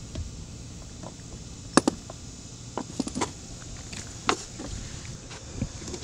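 A handful of sharp metallic clicks and clinks as refrigerant hoses' brass fittings are handled and connected, the loudest about two seconds in.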